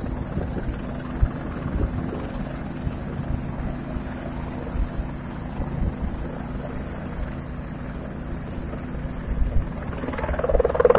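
Light turbine helicopter running on the pad: steady rotor and engine sound with a thin high turbine whine that edges up in pitch near the end.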